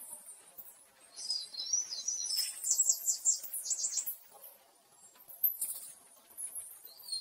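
High-pitched bird-like chirping and trilling, in quick runs of short notes. It is loudest from about one to four seconds in and again near the end.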